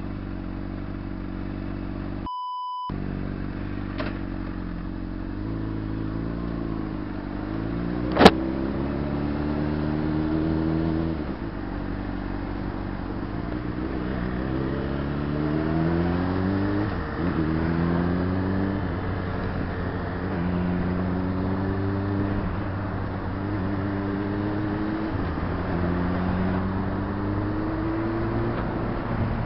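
Honda CBR600RR's inline-four engine, ticking over at low speed at first, then accelerating through the gears: its pitch rises and drops back at each shift, every two to three seconds. There is a short beep about two and a half seconds in, and a sharp click about eight seconds in.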